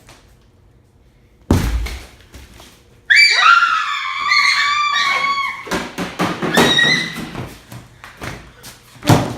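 A loud thump, then a shrill high-pitched scream lasting about two and a half seconds, followed by a scramble of knocks and thuds.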